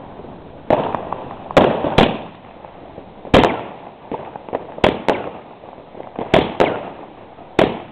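A consumer firework battery ("Big Crackles", a 20-shot cake) firing shot after shot: about nine sharp bangs, some in quick pairs about a quarter-second apart, each with a short crackling tail.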